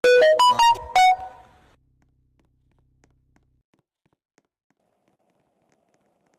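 A quick run of five short pitched notes, a little melody of beeps or chime-like tones, over about a second, fading out within the next half second.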